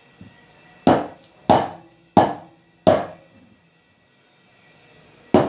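A metal tube cake pan full of batter being rapped down on the table, five knocks with a short metallic ring: four about two-thirds of a second apart, then a pause and one more near the end. The pan is tapped to settle the batter and knock out air bubbles before steaming.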